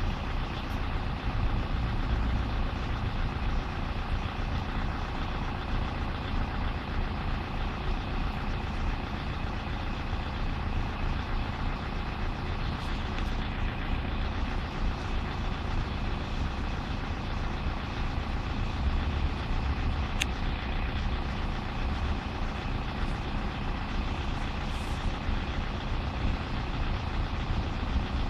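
Level crossing warning alarm sounding steadily while the barriers are down, over a low rumble.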